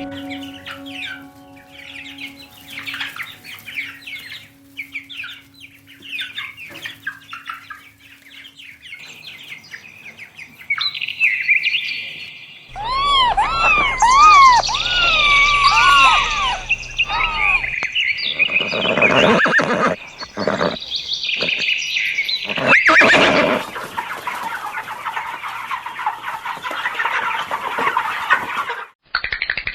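Birds calling in turn: quick chirps at first, then a run of arching, rising-and-falling calls, then a dense steady chorus of chirping near the end. A few sharp knocks come in the middle.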